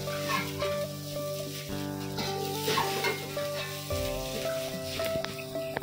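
Metal spatula stirring and scraping fried rice around a stainless steel wok, with the rice sizzling in the pan. The rice is kept moving so it does not stick, and the spatula scrapes and clicks irregularly against the metal.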